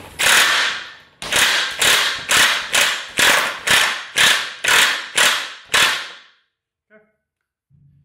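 Ratchet wrench tightening the rear axle nut on a single-sided swingarm: about a dozen ratcheting strokes at roughly two a second, stopping about six seconds in.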